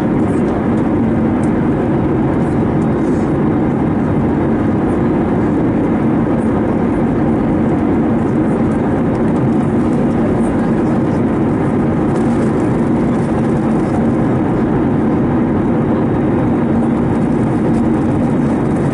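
Steady cabin noise inside an Airbus A321neo with CFM LEAP-1A engines: an even rush of engine and air noise with a constant low hum, unchanging throughout.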